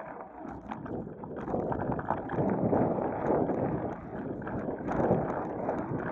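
Wind buffeting the microphone of an Akaso V50X action camera on a moving bicycle: a rushing that grows louder about a second and a half in, then swells and dips in uneven gusts.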